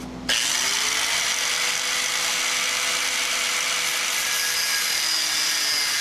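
Ryobi angle grinder switching on about a third of a second in, its whine rising as the motor spins up, then running steadily as it grinds an aluminium engine-mount plate clamped in a vise to shape.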